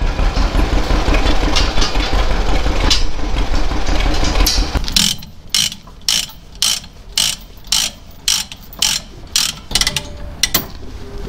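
A steady low engine rumble with a few clicks. After a cut it gives way to a ratchet chain binder being cranked tight on a tie-down chain, about a dozen sharp ratcheting clicks at roughly two a second.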